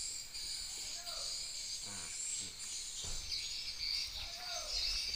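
Steady high-pitched chorus of insects with birds chirping over it, and a few short calls rising and falling.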